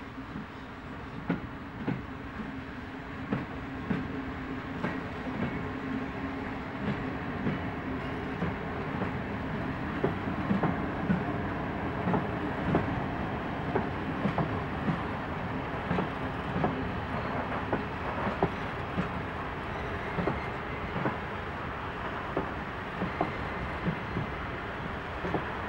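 Railway flat wagons rolling slowly past during shunting, their wheels knocking irregularly over the rail joints, the knocks coming thicker from about ten seconds in. A low steady drone runs under the first half.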